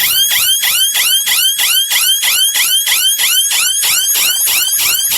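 Electronic alarm siren of a GSM alarm module sounding very loud, a fast warble of rising-and-falling sweeps about four times a second. It has been set off by the door's reed switch opening, after a three-second arming delay.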